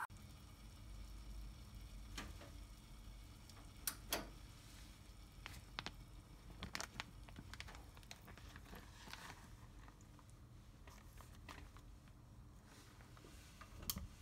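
Faint crinkling and scattered small clicks of a plastic Ziploc bag being handled as it is lowered into a pot of hot water, over a low steady hum.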